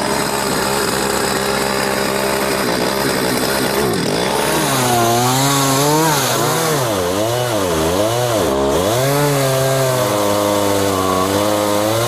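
Two-stroke chainsaw engine running, steady for the first few seconds, then revved up and down over and over from about four seconds in.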